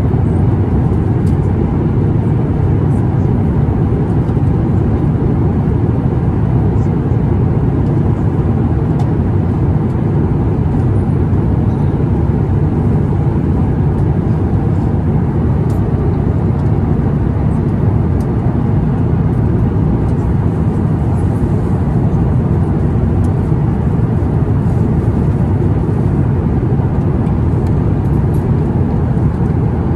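Steady rumble of airflow and engine noise inside the economy cabin of an Airbus A350-1000 in flight, with a few faint clicks.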